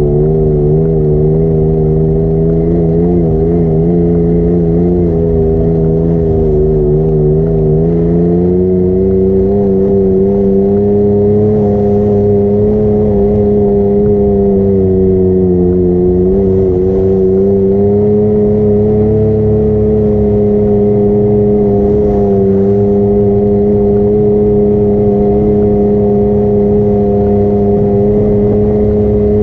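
Vehicle engine running steadily at cruising speed, heard close up as from on board. Its pitch wavers at first, rises a little about eight seconds in, then holds with slight dips.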